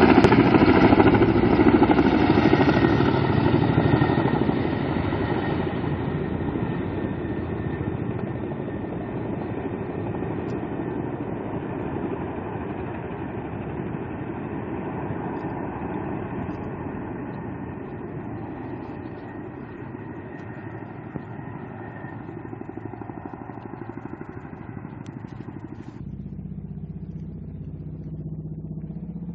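An engine running at idle with a fast, even pulsing. It is loudest in the first few seconds, then settles to a lower level. Near the end its higher part drops away abruptly, leaving a lower hum.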